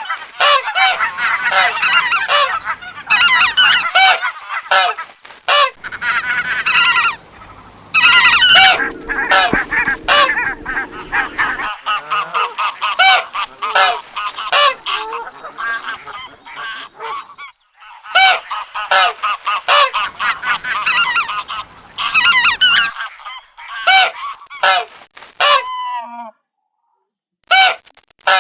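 Domestic geese honking, many loud repeated calls overlapping one another, with a short break near the end.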